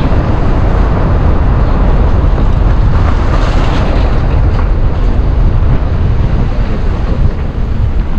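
Wind buffeting the microphone of a moving camera: a loud, steady rumble, heaviest in the low end.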